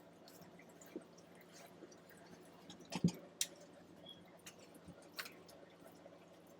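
Faint scattered clicks and ticks over a low steady hum, with a louder cluster of clicks about three seconds in.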